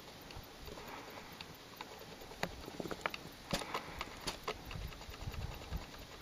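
Chamois grazing, tearing and chewing grass: a scatter of sharp clicks and snaps, thickest in the middle, with a low rumble near the end.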